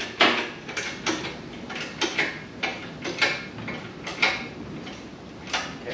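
Engine hoist being worked to lift a small-block Chevy engine: a steady run of clicks, about three a second, that stops about four and a half seconds in, with one more click near the end.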